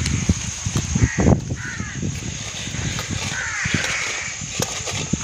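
A hand rubbing rock salt in water around the bottom of a metal bowl to dissolve it, a gritty, uneven scraping. Crows caw a few times, around one second in and again near the middle.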